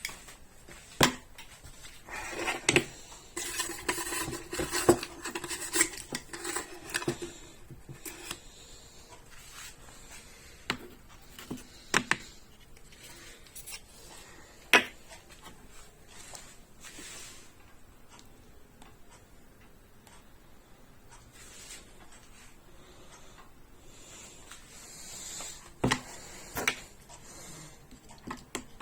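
Cups, dishes and metal utensils clinking and knocking as they are handled and cleaned, with a few seconds of rubbing and scraping near the start. The knocks are scattered and sharp, the loudest about a second in, then around 12 and 15 seconds in, and two more near the end.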